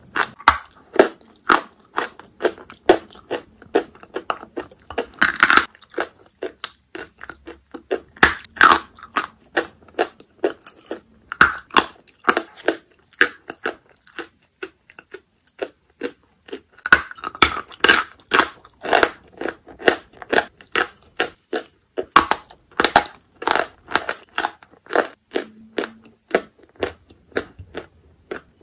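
Close-up chewing of wet chalk coated in clay paste: a quick, irregular run of crisp crunches, a few each second.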